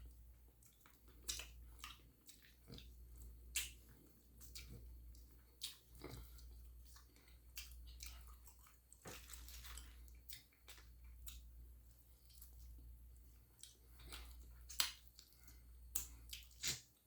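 Close-up chewing and mouth sounds: food being chewed, with soft wet smacks and clicks at irregular moments, over a low steady hum.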